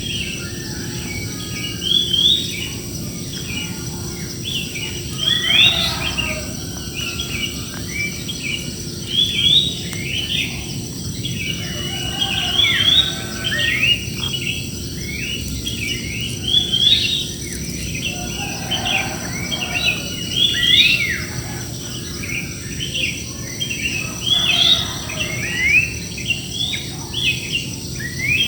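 A flock of many birds chirping and calling together in a large tree: a dense, busy chorus of short overlapping chirps and quick note slides, with a steady high-pitched hum underneath.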